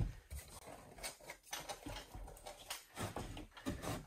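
Faint, scattered knocks and scuffs as a snowmobile's metal muffler is picked up and handled.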